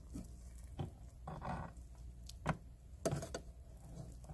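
Perforated metal turners knocking and scraping against the inner pot of an electric pressure cooker as boiled radish and green onion are lifted out of the broth: a few sharp knocks with short scrapes between them.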